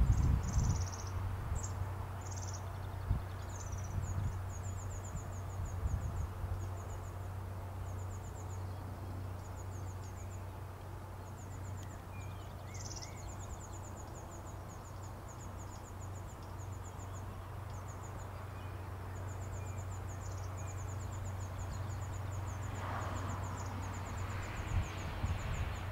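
Outdoor ambience: short, rapid, high-pitched chirping trills repeat again and again over a steady low rumble.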